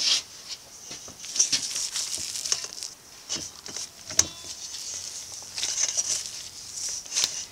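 Bread dough being kneaded by hand in a stainless steel bowl, with a disposable glove rustling: irregular soft squishing and crinkling, with a few sharp taps, one just after the start, one about four seconds in and one near the end.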